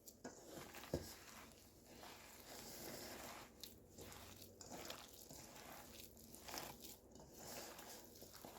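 Bare hands squishing and kneading a ground chicken mixture in a bowl, the meat still slightly frozen, giving faint, irregular wet strokes, with a single knock about a second in.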